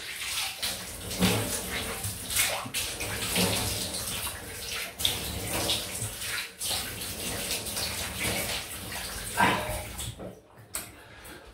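Water running from a tap and splashed repeatedly onto the face, rinsing off after a shave.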